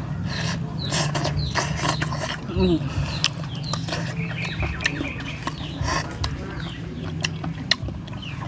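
Close-up eating sounds: cooked snails sucked and slurped out of their shells, with many sharp clicks of shell, skewer and mouth.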